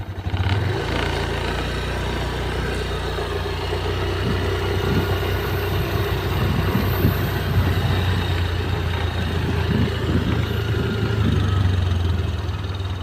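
Engine running steadily at an even low hum.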